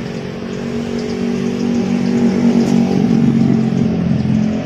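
A motor vehicle engine running close by, growing louder to a peak about three seconds in and then easing off.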